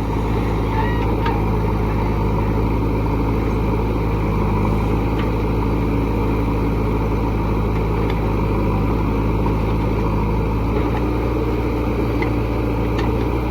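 A heavy diesel engine running steadily at an even, unchanging speed.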